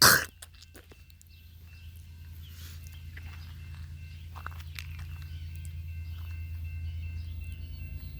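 Low, steady rumble of approaching diesel freight locomotives, growing gradually louder. A sharp knock sounds right at the start.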